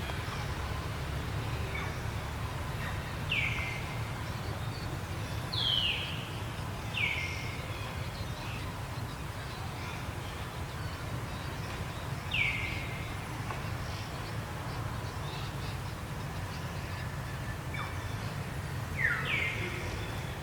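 Short high chirping calls, each falling quickly in pitch, about six times at uneven intervals, over a steady low rumble.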